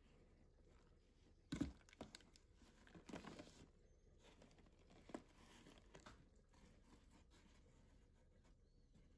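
Dry, crisp Napoleon cake layer crackling and rustling as it is laid onto the cream and pressed down by hand. There is a sharp crack about one and a half seconds in, a rustle around three seconds, then a few small clicks.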